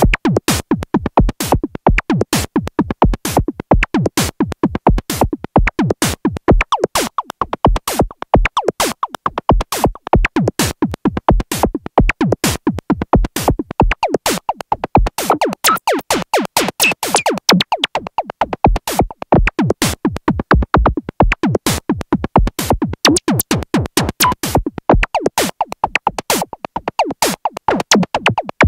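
Korg Monologue analog monophonic synthesizer playing a fast sequenced pattern of short, plucky notes with a sharp attack, the pitch moving from note to note.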